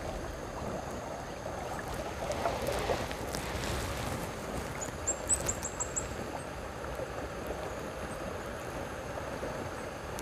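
River water running and lapping around a kayak in a fairly swift current, with a few faint knocks, and a short run of about six high chirps about five seconds in.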